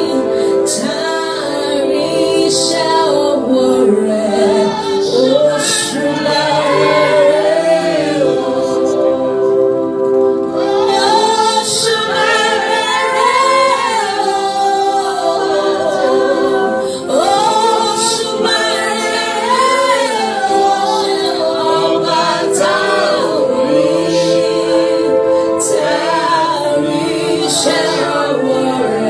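Gospel worship song: a choir singing with sustained held chords and a lead voice carrying the melody over them.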